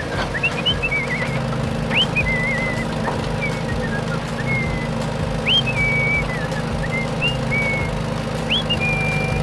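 A steady low engine rumble with short whistles every second or two, each rising quickly and then wavering or holding briefly.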